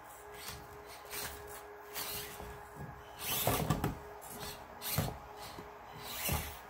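Axial SCX24 1:24-scale RC crawler driving down a ramp and over rocks: its small electric motor and gears whir faintly under a series of knocks and bumps as the tires and chassis hit the rocks. The loudest knocks come about halfway through and again near the end.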